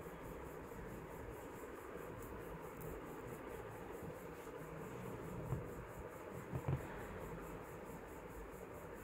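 Quiet room tone with a faint, evenly repeating high-pitched pulsing, and a few soft bumps about five and a half and six and a half seconds in as the multi-strand gold-finish chain is handled.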